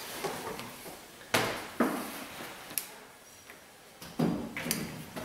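A few sudden knocks and clatters of tools and parts being handled during engine installation work, about five in all; the loudest comes a little over a second in and a pair comes near the end.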